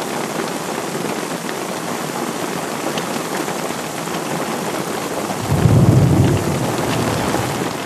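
Heavy rain falling steadily on a lake and the surrounding grass, with a low rumble of thunder about five and a half seconds in that lasts a second or two.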